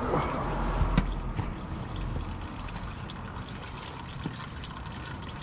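Engine oil trickling out of the oil-filter cartridge housing through a plastic drain tube, with one light knock about a second in.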